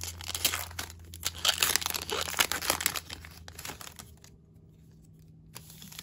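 Foil wrapper of a Pokémon trading card booster pack crinkling and tearing as it is pulled open, busy for about three seconds, then dying away to quiet handling of the cards.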